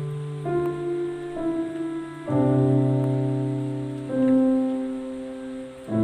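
Slow background music on piano: held chords that change every one to two seconds, each fading away after it is struck.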